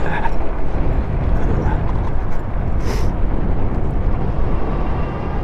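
Wind buffeting the microphone, mixed with road and tyre noise, while riding a Super73 S2 electric bike: a steady, heavy rumble, with a brief hiss about three seconds in.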